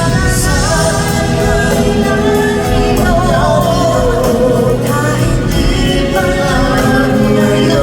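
Live concert music: singing with long held, wavering notes over a full band accompaniment.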